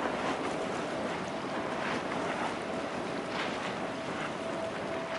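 Distant jet engines of an Airbus A320 and a second narrow-body airliner on approach: a steady rushing rumble with a faint steady tone running through it. Wind on the microphone is mixed in.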